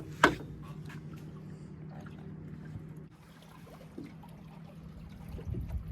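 A steady low hum that cuts off about three seconds in, with a sharp knock just after the start and light water trickling on a fishing boat.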